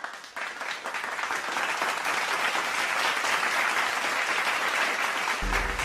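Crowd applause that swells up over the first second and then holds steady. Near the end a low bass line of music comes in under it.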